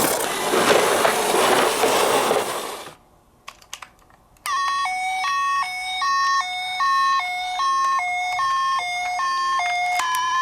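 A dense clattering rush of noise for about three seconds, then a short near-silent gap with a few sharp clicks. About four and a half seconds in, a two-tone ambulance siren starts, switching between a high and a low note about once a second.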